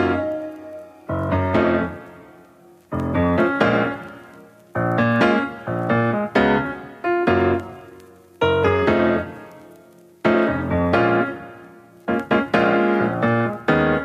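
Background piano music: chords struck about every one and a half to two seconds, each left to ring and fade before the next.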